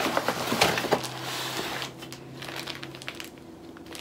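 Packaging being handled: a few sharp clicks and knocks in the first second, then about a second of paper and plastic rustling, fading to faint crinkles.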